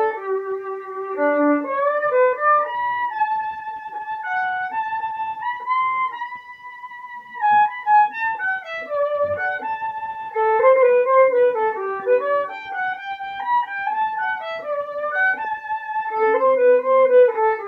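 Solo violin playing a bowed melody, with one long held note about six seconds in.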